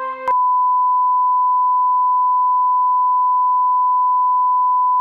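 A steady, loud reference test tone of the kind run with colour bars, holding one unchanging pitch. Music cuts off abruptly just before it starts.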